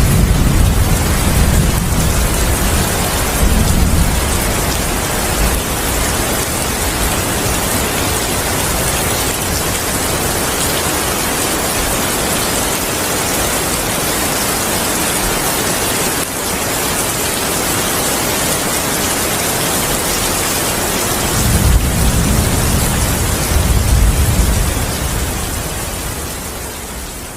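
Heavy rain with rolling thunder: a steady rain hiss, with deep thunder rumbles at the start and again about 21 seconds in. The sound fades out near the end.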